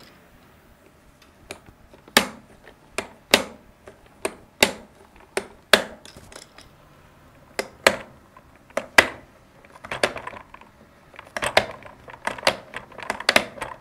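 Sharp plastic clicks from the hand-turned crank of a Play-Doh Magic Swirl Ice Cream Shoppe sprinkle maker as it presses Play-Doh out into sprinkles. The clicks come about one or two a second and run faster and closer together near the end.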